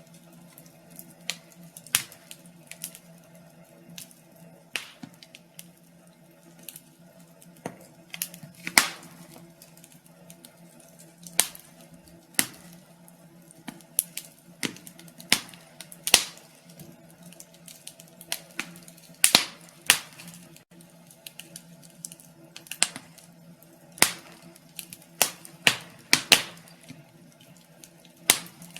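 Wood fire crackling: irregular sharp pops and snaps, roughly one every second or two and uneven in strength, over a faint steady low hum.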